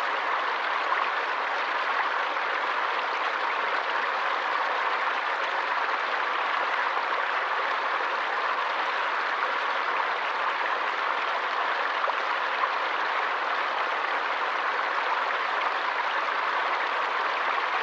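Forest stream flowing and splashing steadily, an even rushing hiss without pauses or changes.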